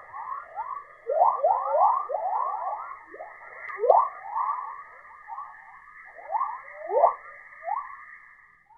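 Radio plasma-wave emissions from Earth's magnetosphere, as recorded by NASA's Van Allen Probes and played as audio: a rapid stream of overlapping short chirps over a steady high hum, with a few louder chirps standing out.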